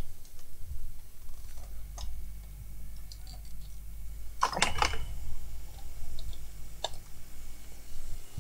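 Scattered clicks and small knocks of things being handled on a workbench, with a louder clatter of several strokes about halfway through, over a low steady hum.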